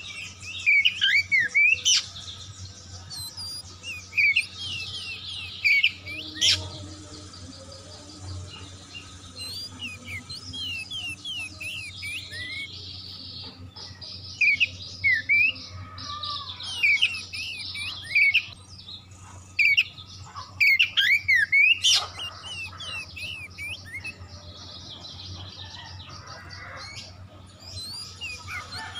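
Oriental magpie-robin singing: loud clusters of sharp, varied chirps and whistled notes every few seconds, over a faint steady low hum.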